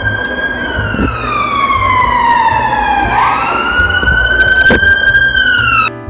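Emergency vehicle siren wailing: one slow falling sweep, then a rise about three seconds in, held high until it cuts off suddenly near the end.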